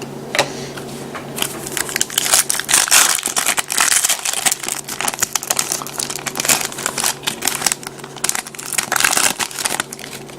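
Foil trading-card pack wrapper being torn open and crumpled, in dense, irregular crinkling crackles.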